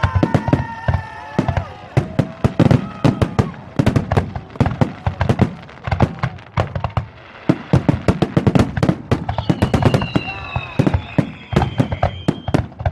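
Fireworks display: a dense, rapid run of bangs and crackling reports, many per second, with high whistling tones that fall slightly in pitch, one long whistle near the end.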